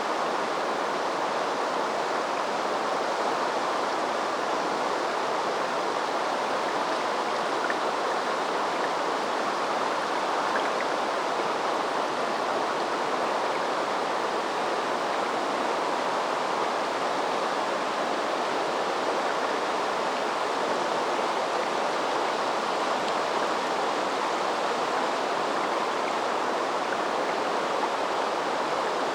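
River water flowing in a small tributary: a steady, even rush of running water.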